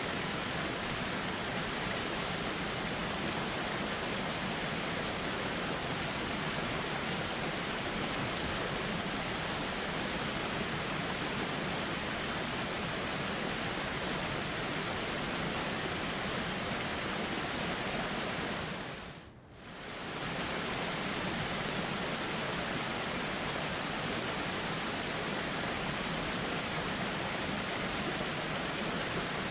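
River water flowing in a steady, even rush. About two-thirds of the way through it fades briefly away and comes straight back, like the join of a looped recording.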